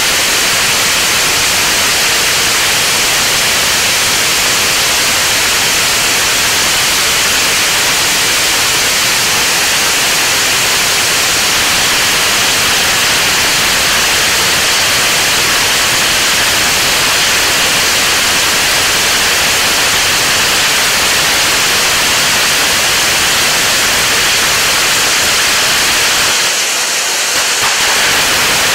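Peacock Fountain (SS-1102) ground fountain firework spraying sparks with a steady hiss, which dips briefly near the end.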